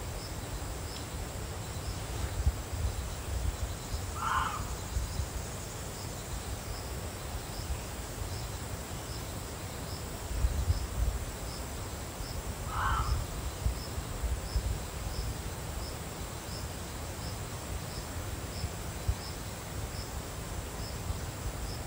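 Reeves's muntjac barking: two short, single dog-like barks about eight seconds apart. A faint insect ticks steadily a little faster than once a second over a low background rumble.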